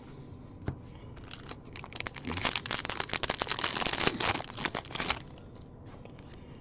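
Foil wrapper of a 2022 Bowman Baseball card pack crinkling and tearing as it is opened, a dense crackle that starts about a second and a half in and stops about five seconds in.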